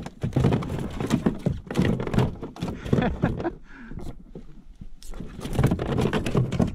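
A rapid series of sharp knocks and thuds, quieter for a moment in the middle, mixed with a man's laughter.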